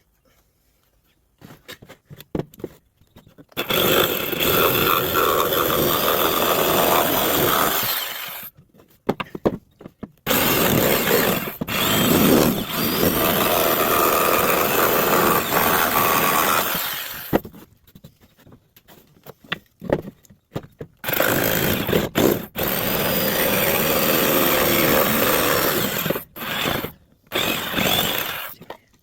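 A power tool working wood in three runs of several seconds each, with short pauses and a few knocks between them.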